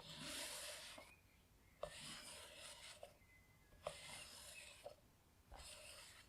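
Sticky lint roller rolled over a cotton T-shirt in four soft strokes of about a second each, the tape crackling off the fabric, with a small click as the roller touches down and lifts at each stroke.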